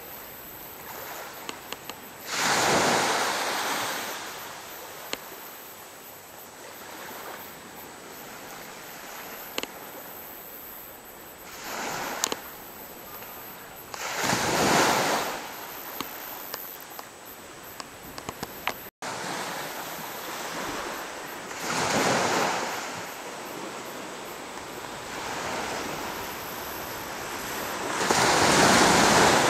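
Surf breaking on a beach: a steady wash of waves that swells up every several seconds as a wave breaks and runs in, then fades. The last swell, near the end, is the loudest.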